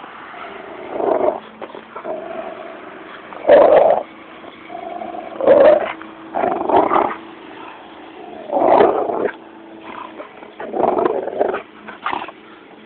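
Dog growling while playing tug-of-war with a rope toy, in a run of loud growl bursts every second or two, with a lower steady growl between them.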